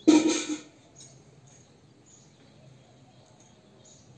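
A young calf gives one short, loud call, about half a second long, right at the start. Faint bird chirps follow in the background.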